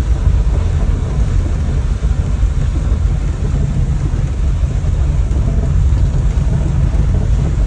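Steady low rumble of a farm vehicle's engine and cab, heard from inside the cab while it creeps along a muddy, rutted track. A constant hiss lies over the rumble.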